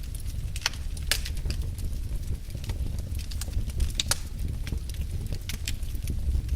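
Wood fire burning in a fireplace: irregular sharp crackles and pops, a few a second, over a steady low rumble of the flames.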